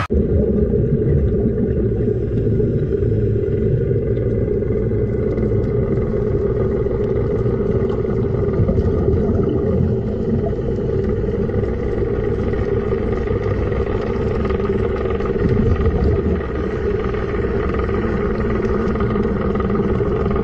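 Steady low rumble of a boat engine, with faint steady tones above it.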